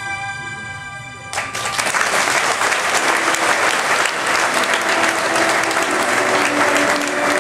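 Background music with long held notes, then about a second and a half in a hall audience suddenly breaks into applause that keeps going, with the music still running beneath it.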